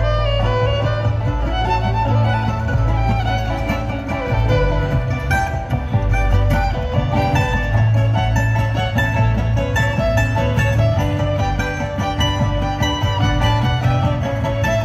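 Live bluegrass band playing an instrumental passage: bowed fiddle over banjo, mandolin and upright bass, at a steady driving pace.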